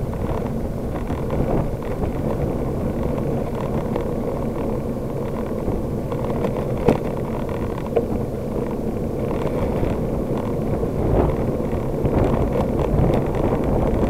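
Steady rumble of a bicycle riding on a paved path, heard through a handlebar-mounted camera: road vibration and wind buffeting the microphone. Two brief knocks come a little past the middle.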